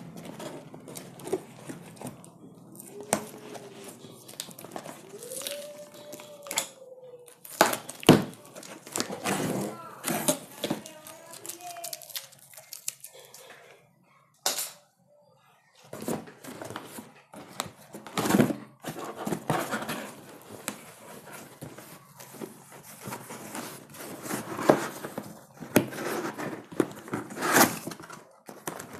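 Cardboard pump carton being opened by hand: packing tape tearing, flaps pulled open, cardboard rustling and scattered knocks, with a brief quiet gap about halfway.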